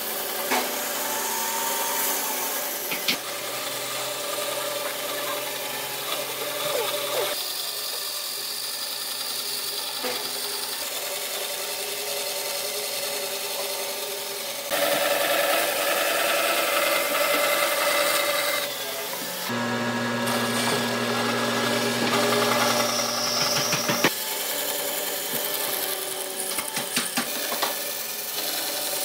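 Band saw running and cutting through a thick hardwood railway sleeper: a steady motor hum under the rasping hiss of the blade in the wood. The sound changes abruptly several times, and there is a quick run of ticks near the end.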